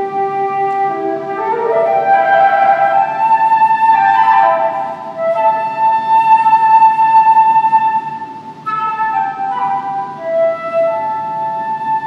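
Solo flute playing: a rising run of notes about two seconds in, a long held note in the middle, then a string of shorter notes.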